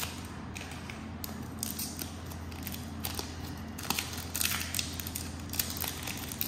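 Paper-and-cardboard sleeve and foil wrapper of a Pokémon card booster pack being handled and torn open: irregular crinkles, rustles and rips, thickest in the second half.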